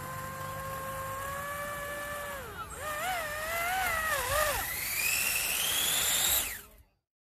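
Electric ducted fans of small RC hydroplane boats whining: a steady whine for about two and a half seconds, then wavering up and down with the throttle, then a rising whine as a fan spools up. It cuts off abruptly near the end.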